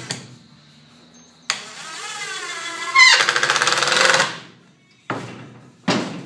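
Cordless screw gun driving a screw into thick pallet wood: the motor whirs up with rising pitch, then gives a fast rattle for about a second as the screw bites, and stops. A couple of short knocks follow near the end.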